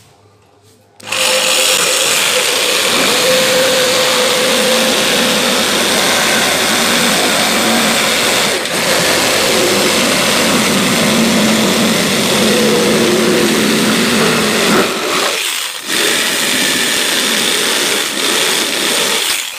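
Electric jigsaw cutting a curved line through plywood. It starts about a second in and runs loud and steady, stops briefly about three quarters of the way through, then starts again and cuts on until near the end.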